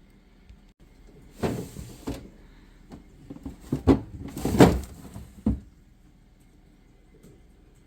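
Household handling sounds: two short sliding scrapes, one about a second and a half in and a louder one about four and a half seconds in, with a few sharp knocks between them and a last knock soon after.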